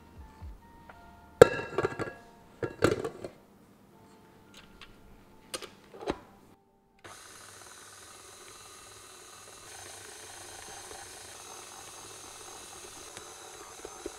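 A few sharp metal knocks and clanks, then a KitchenAid Artisan stand mixer starting about seven seconds in and running steadily at medium-low speed as it kneads bagel dough in its stainless steel bowl. The motor steps up slightly about ten seconds in.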